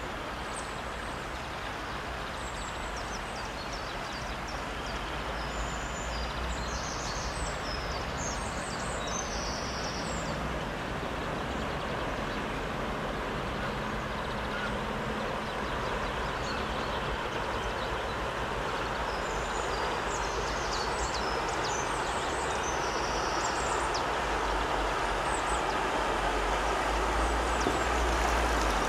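Steady engine and water noise of a passing motor cargo barge, growing louder as its stern and wheelhouse draw level. Birds chirp twice in the background.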